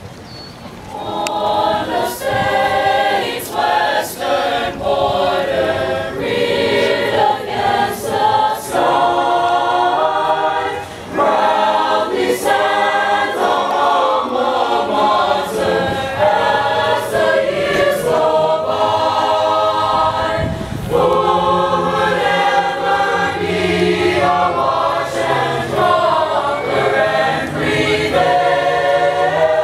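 Mixed choir of men's and women's voices singing a choral piece through microphones, starting about a second in.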